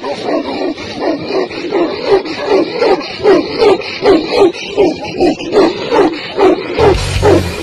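Tibetan mastiff barking repeatedly, about three barks a second in a steady rhythm. Loud rock music with heavy bass comes in near the end.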